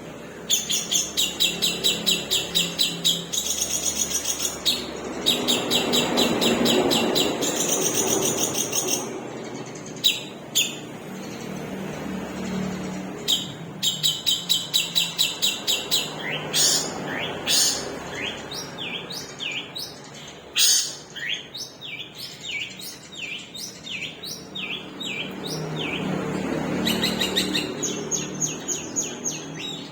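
Long-tailed shrike (cendet) singing: long trains of rapid, evenly repeated high notes, the long 'shots' (tembakan panjang) that bird keepers prize. Between them come short falling notes and varied calls, about a third of the way in and again past the middle.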